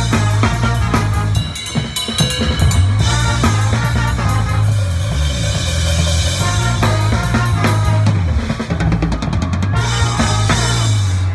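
Pep band playing loud: a drum kit driving a steady beat with bass drum, snare and cymbal hits, under brass that holds a low, sustained bass line.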